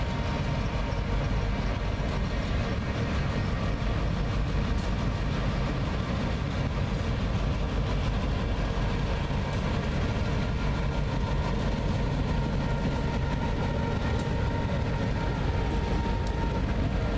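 Diesel-electric locomotives of the Florida Central Railroad rolling slowly past close by, their engines making a steady rumble with a thin, steady whine above it and a few faint clicks.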